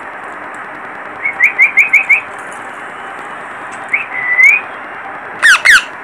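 Yellow Indian ringneck parakeets calling: a quick run of five short rising chirps about a second in, a longer call around four seconds, then two loud falling screeches near the end.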